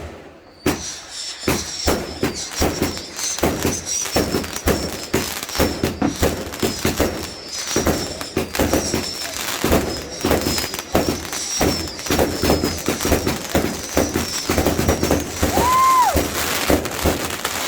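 Fireworks crackling and popping in a rapid, dense barrage, with a short whistle that rises and falls near the end.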